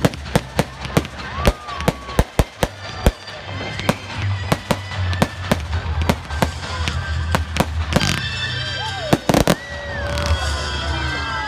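Fireworks display: aerial shells bursting in a rapid, irregular run of sharp bangs and crackles, with a denser crackling spell about eight seconds in.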